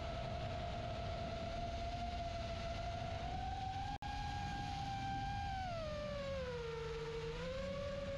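FPV quadcopter's motors and 4-inch three-blade propellers whining in flight. The pitch holds steady, rises slightly, then falls and comes back up as the throttle changes, over a rushing of air. The sound cuts out for an instant about four seconds in.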